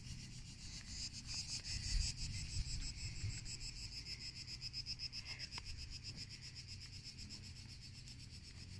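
Insects chirping outdoors, a steady, rapid high-pitched pulsing, over a faint low rumble.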